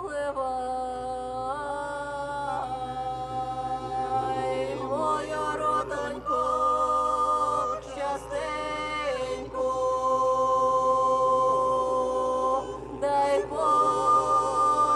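A small group of voices singing together unaccompanied in harmony, holding long notes with slow vibrato, in phrases separated by short breaths.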